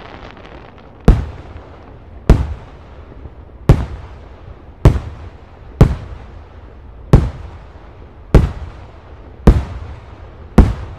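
Aerial firework shells bursting overhead: nine sharp bangs, about one a second, each trailing off in a short echo.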